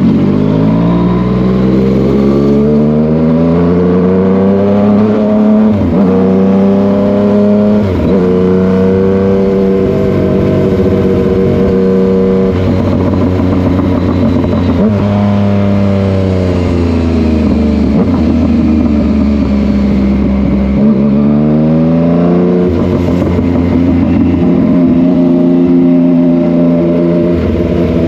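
Yamaha MT-09's inline three-cylinder engine under way, its pitch climbing as it accelerates and dropping sharply at several gear changes, then falling away as the throttle eases and climbing again near the end.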